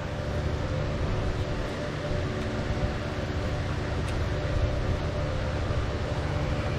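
Steady mechanical hum with several held tones over an even hiss, from a running machine.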